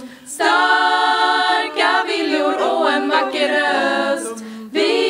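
A group of women singing a cappella in close harmony, holding chords in phrases of a second or so with short breaks between them. The singing dips briefly before a loud chord comes in near the end.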